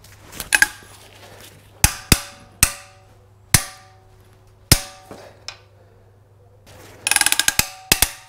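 Long-handled ratchet on a Chevy 2.2 Ecotec's cylinder head bolts, pulled hard through the angle-tightening pass. Sharp metallic clacks with a short ringing tail come a second or so apart, then a quick rattle of ratchet clicks about seven seconds in and two more clacks just after.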